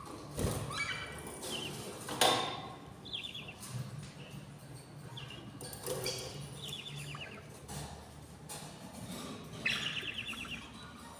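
Budgerigars chirping and chattering in short, rapidly pulsed calls, with a sharp knock about two seconds in.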